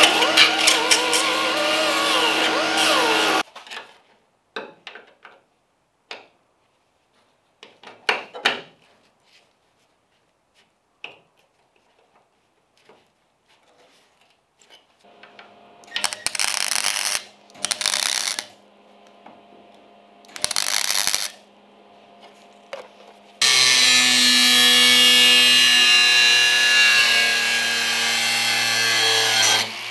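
Small right-angle die grinder with an abrasive disc running on bare car-body sheet steel, stopping about three and a half seconds in. Then come scattered light clicks and knocks of hand work, and three short bursts of noise. From about three-quarters of the way through, an angle grinder runs against the steel wheel arch, stopping just before the end.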